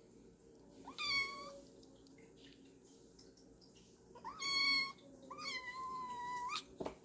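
Domestic cat meowing three times, the last meow long and drawn out, over a faint steady low hum.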